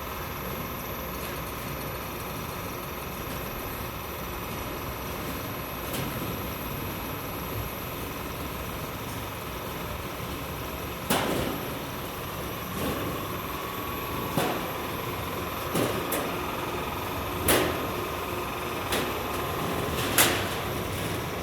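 Garage door panel roll forming machine running with a steady hum and a high whine, with sharp metallic knocks every second or two in the second half.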